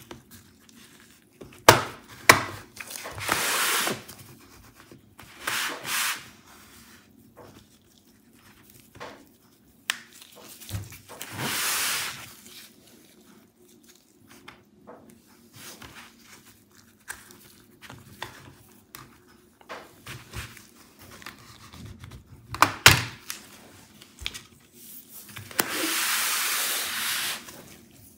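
Thin plastic pry tool scraping along the seam of a laptop's plastic bottom cover, in several passes of a second or two, with sharp clicks as the cover's retaining clips snap loose. The loudest clicks come about two seconds in and again around 23 seconds.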